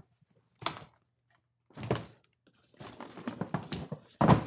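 Handling noise from a Milwaukee Packout tool bag being lifted and set down onto a Packout stack: a few separate knocks, a stretch of rustling and plastic clatter, then a loud clack near the end as the bag clips into place.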